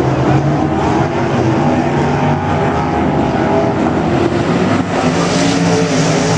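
A field of IMCA Modified dirt-track race cars racing, several V8 engines running together under power. The sound turns harsher about five seconds in as the pack comes closer.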